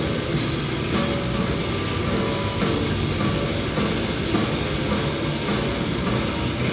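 Live extreme metal band playing loud and dense: distorted electric guitars through Marshall stacks, bass and a full drum kit, with no break.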